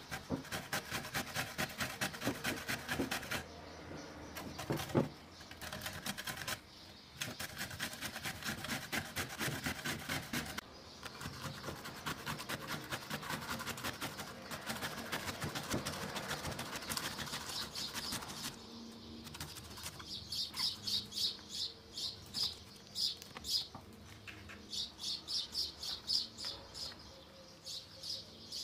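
Zucchini being grated on a stainless-steel box grater into a glass bowl: quick rhythmic rasping strokes, about three to four a second, broken by short pauses. In the last third the grating gives way to a bird chirping in quick repeated high bursts.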